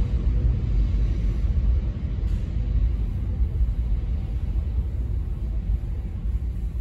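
New York City subway train rumbling steadily as it pulls away into the tunnel, heard from the platform.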